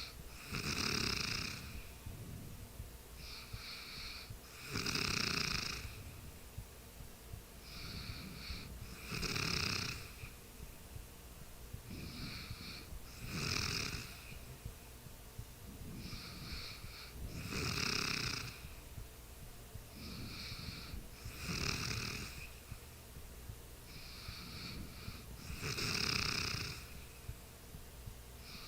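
A sleeper snoring in a steady rhythm: a loud snore about every four seconds, seven in all, each followed by a softer breath.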